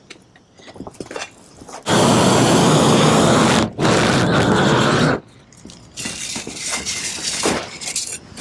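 Propane roofing torch blasting at full flame while heating torch-down membrane, a loud steady roar that switches on about two seconds in and cuts off sharply twice, around four and five seconds in. After it comes quieter scraping of a hand trowel pressing the membrane seam.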